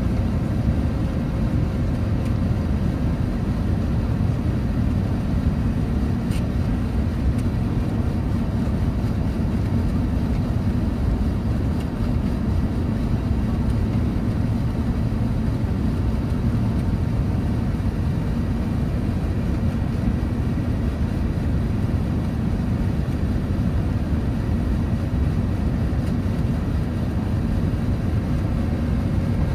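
Steady in-flight cabin noise of an Airbus A350-941 on final approach: a low, even rumble of airflow and its Rolls-Royce Trent XWB-84 engines heard from a window seat.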